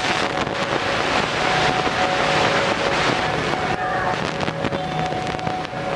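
Steady roar of road traffic from a busy main road, with wind buffeting the microphone and a faint steady drone underneath.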